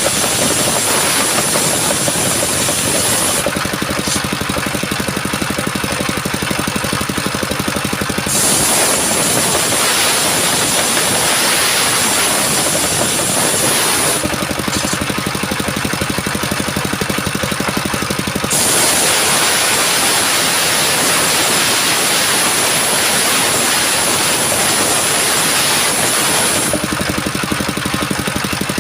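Engine-driven circular sawmill blade ripping coconut wood, with the engine running throughout. Three long cuts, each several seconds long, fill the air with a loud, high hiss; between them only the engine and the freely spinning blade are heard.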